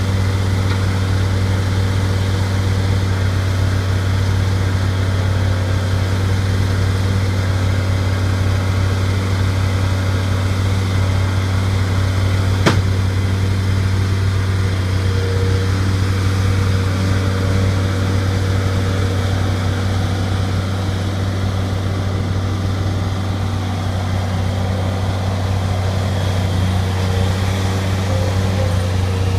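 Bobcat skid steer loader's engine running steadily, with one sharp click about halfway through.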